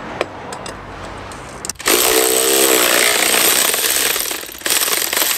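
Electric ratchet with a 32 mm socket undoing the oil filter housing lid on a BMW M57 diesel engine. It starts about two seconds in with a whining buzz, stops briefly, then runs again in a shorter burst.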